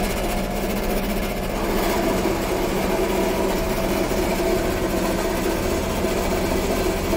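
Hafco MetalMaster metal-cutting bandsaw running steadily, its blade cutting through aluminium square hollow section: a constant motor hum under the even hiss of the blade in the metal.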